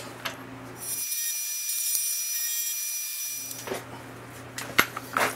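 A compressed-air blow gun hissing for a couple of seconds, clearing aluminium chips from the milling machine vise, followed by a few sharp metallic clicks and knocks as the part and vise are handled.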